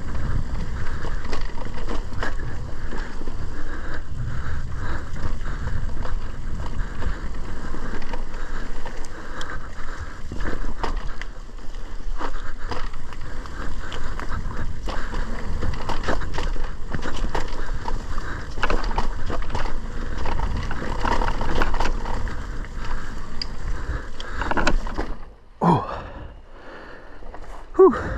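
Mountain bike ridden along a dirt trail: tyres rumbling and scraping over the ground, with the bike rattling and knocking constantly. Near the end the riding noise drops away suddenly.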